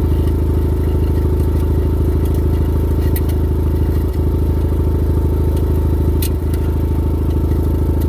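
Kubota's engine running steadily at an even speed, with a few faint clicks and rattles over it.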